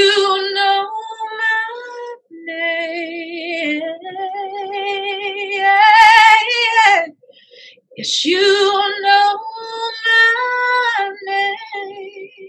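A woman singing a slow worship song solo, with vibrato on long held notes. The phrases break off about two and seven seconds in, and the loudest, highest phrase comes around six seconds.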